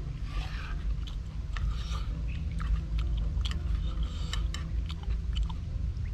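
Eating sounds close to the microphone: a person chewing and biting a cooked wild mushroom dish, with irregular wet mouth clicks, over a steady low rumble.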